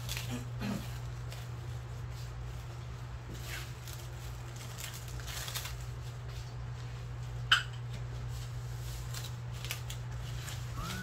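Faint clicks and knocks of kitchen items being handled over a steady low hum, with one sharp click about seven and a half seconds in.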